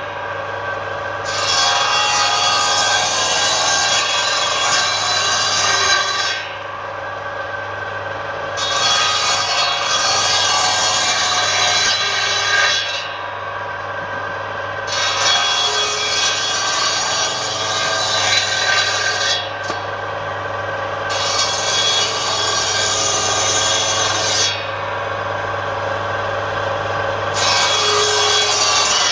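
Circular saw blade on a table saw cutting into a length of wood held by hand, shaving it to a taper. The rasping cut comes in about five passes of a few seconds each, with the blade running lighter between them, over a steady motor hum.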